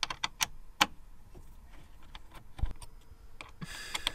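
A 5/32 hex key working a steel bolt in a window frame: a quick run of sharp metallic clicks in the first second, then scattered lighter ticks, a soft thump, and a short rustle near the end.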